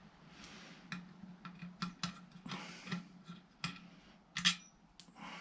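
Light, irregular metallic clicks and ticks of a ratchet and socket working loose the bolts of a lawnmower engine's bottom pan, over a faint steady hum.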